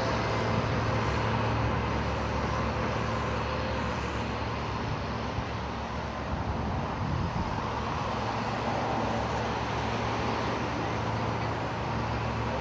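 Steady outdoor drone of engines and road traffic, with a constant low hum underneath.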